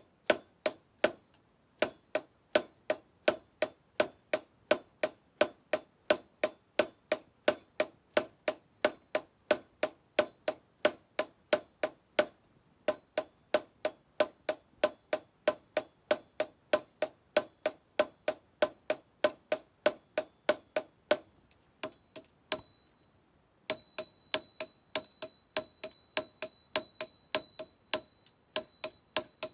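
Blacksmith's hammer striking metal on an anvil in a steady rhythm of about three blows a second, each blow ringing briefly. After a pause of about two seconds near the end the blows resume with a higher, longer ring.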